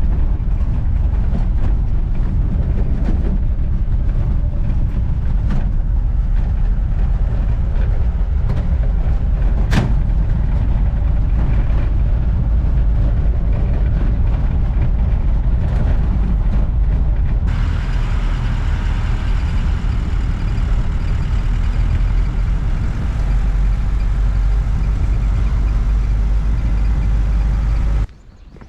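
Steady, loud, low rumble from riding in a moving Jeep. The hiss grows a little over halfway through, and the sound cuts off suddenly near the end.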